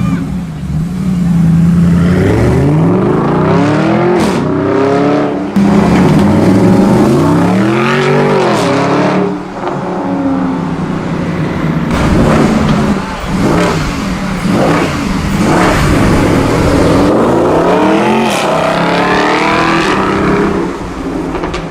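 Mercedes-Benz SLS AMG's 6.2-litre V8 with an aftermarket exhaust, revving hard several times, its pitch climbing and falling, with a few sharp cracks and pops between revs. It fades out near the end.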